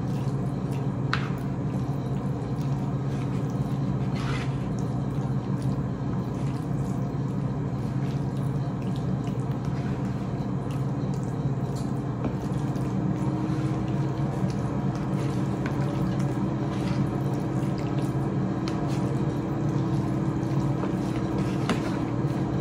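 A steady low hum underlies faint wet squishing as sauce-coated spaghetti is lifted and forked onto a plate, with a couple of light clicks of the fork against the plate.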